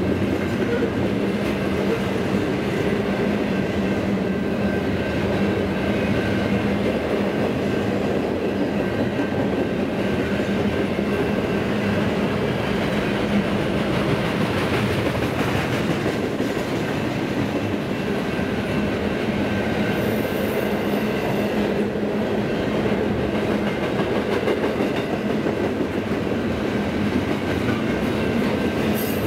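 Double-stack intermodal train's loaded container well cars rolling past at steady speed: a continuous rumble of steel wheels on rail.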